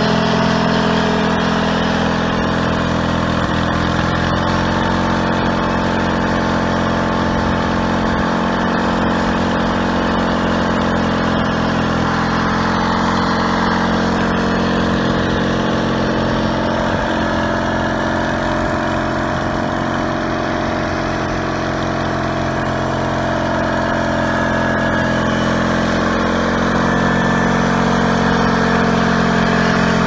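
Homemade bandsaw mill's Kohler engine running steadily as the band blade saws along a log; its note sags slightly past the middle under the cut and then recovers.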